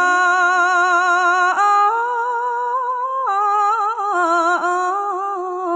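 A woman chanting Khmer smot, sung unaccompanied as one long melismatic phrase. The held notes waver with vibrato and step up in pitch about one and a half seconds in, then back down near four seconds.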